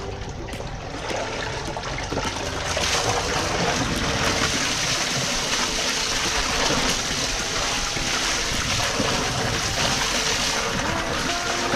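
Water gushing from the end of a large hose and splashing into a concrete drain pit full of wastewater, flushing it. The flow gets louder about three seconds in, then runs steadily.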